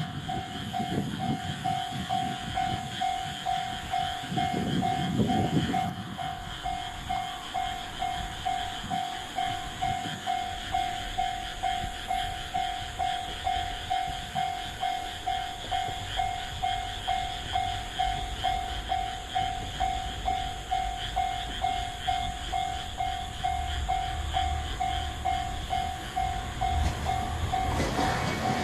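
Japanese level-crossing warning bell ringing, one steady tone repeating about twice a second. A low rumble, the approaching type 1500 diesel railcar, builds near the end.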